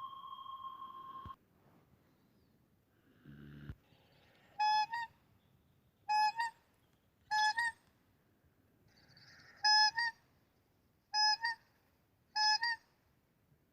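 A steady high electronic tone cuts off about a second in. After a brief low buzz, a horn sounds six short honks, each a quick step from a lower note to a slightly higher one, spaced a second or two apart.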